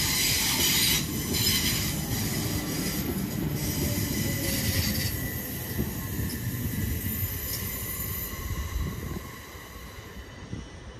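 Southern Class 377 electric multiple unit moving out along the platform, a rumble of wheels on rail with a steady high-pitched wheel squeal. The sound fades away about nine seconds in, once the last coach has gone.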